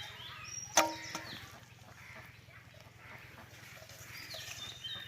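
Small birds chirping again and again in short rising and falling notes, with one sharp knock about a second in that is the loudest sound.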